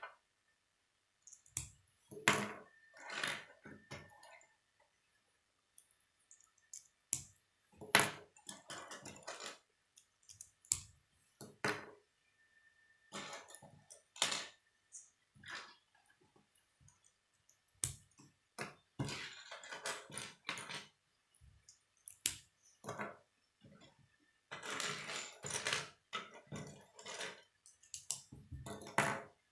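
K'nex plastic parts clicking and clattering as they are snapped together by hand and picked from a pile, in irregular bursts with short pauses. Now and then a sharper knock as a piece is set down on the wooden table.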